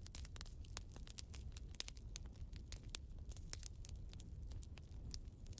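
Faint crackling: many sharp, irregular clicks over a low steady rumble, like the crackle of an animated smoke end screen's sound effect.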